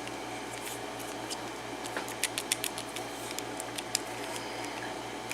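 Light clicks and ticks of a Schlage key-in-knob lock being handled as its cylinder and key are worked back in, with a cluster of clicks around the middle, over a steady low hum.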